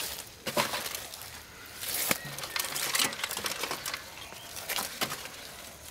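Hands rummaging through leaves and live fish inside an old computer case, with scattered sharp clicks and knocks against its plastic and metal panels and rustling in between.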